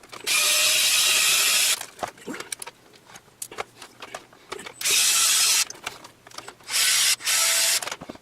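Handheld electric drill-driver spinning in three bursts, a longer one of about a second and a half, then two shorter ones, typical of driving screws out of a metal chassis. Light handling clatter falls between the bursts.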